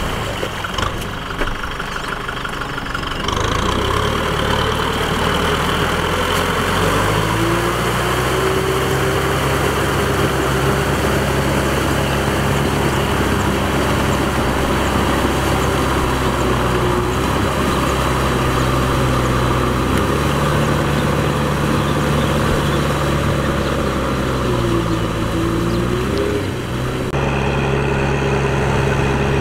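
Diesel tractor engine running steadily under load while it drives a rotary tiller through flooded paddy mud. Its pitch rises a quarter of the way in, then dips and picks up again near the end.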